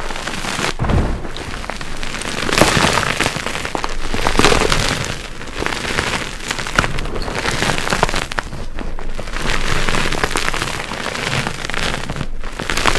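Dyed gym chalk blocks being crushed by hand, a dense crunchy crackling that swells and eases in repeated squeezes, with powder crumbling.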